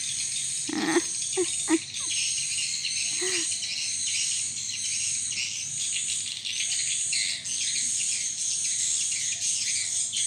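Steady, dense, high-pitched insect chorus of crickets or cicadas trilling without a break. A few brief, lower sounds come in the first couple of seconds and once more at about three seconds.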